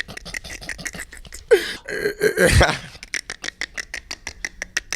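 A man's non-word mouth noises: a string of quick sharp clicks and smacks, with a loud drawn-out vocal cry starting about a second and a half in and lasting about a second.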